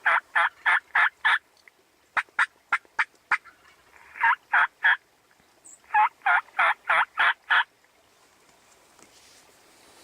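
A turkey call blown in hen-turkey yelps. The yelps come in runs: one at the start, a run of shorter, sharper notes about two seconds in, three more near the middle and a run of six a little later, and then the calling stops.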